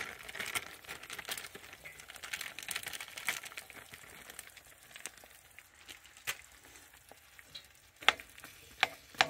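Eggs sizzling in a nonstick frying pan as cooked sausage crumbles are tipped onto them. About eight seconds in, a spatula starts clicking and scraping against the pan.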